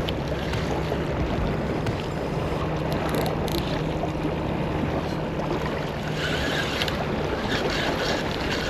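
Steady wind and water noise on an open saltwater pier, with the wind buffeting the microphone. A faint low hum runs underneath from about one to six seconds in.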